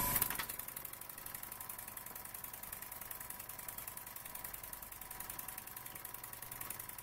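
Junior Engineer SE-100 model beam engine running on compressed air at about 15 to 18 PSI, ticking over in rapid, even beats after its flywheel is turned by hand at the start. A small airbrush compressor runs steadily underneath.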